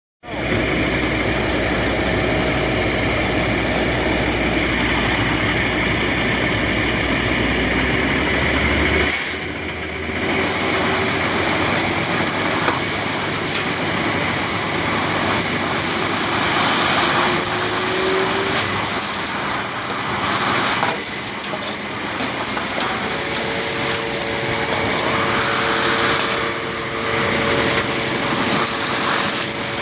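Sewer vacuum truck running, its engine and suction making a loud steady drone while it cleans out a storm drain. About nine seconds in the low rumble drops away, leaving a steady rushing hiss.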